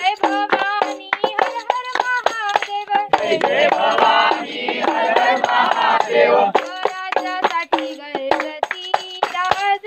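Music: singing over a fast, even clicking percussion beat. About three seconds in, a fuller, denser passage of voices or instruments comes in, and the thinner singing and clicks return after about six seconds.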